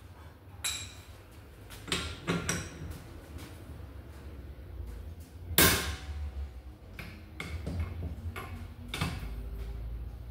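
Metal tools knocking and clanking against car suspension parts in a series of separate sharp strikes, the loudest about halfway through, over a steady low hum.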